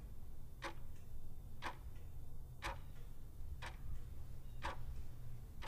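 Clock ticking, faint and even, one tick each second, over a low steady hum.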